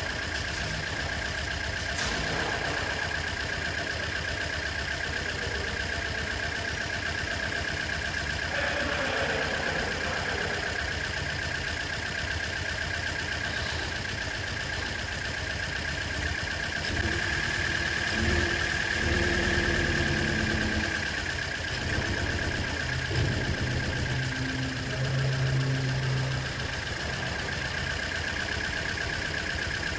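Toyota Corolla's four-cylinder engine idling steadily, with a steady high whine over it; the engine is the one being diagnosed for a misfire.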